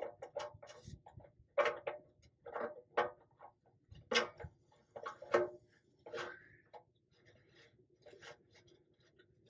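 Irregular light clicks and taps, about a dozen, spaced unevenly and thinning out near the end, as a new drain valve is fitted by hand into a Peterbilt 579's oil pan drain.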